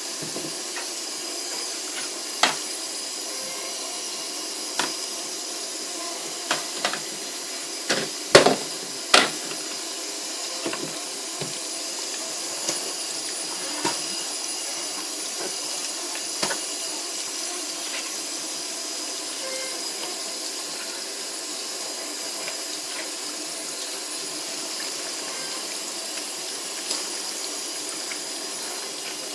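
Water running steadily in a Superbrite twin tub washing machine, with scattered clicks and knocks, the loudest a few close together about a third of the way in.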